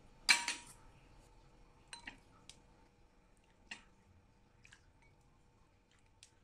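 A metal ladle clinking against the pot and a ceramic bowl while stewed chicken feet and broth are ladled in. There is one louder clatter just after the start, then a few light clicks and taps.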